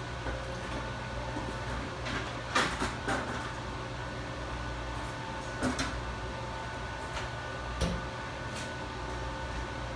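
A metal stepladder being handled and moved, giving about four short knocks and clanks, the loudest about two and a half seconds in. A steady hum runs underneath.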